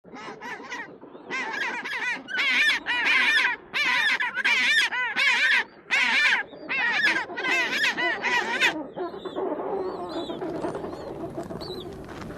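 An animal, bird-like, giving a long series of loud calls, about two a second. They stop about nine seconds in, leaving fainter chirping calls.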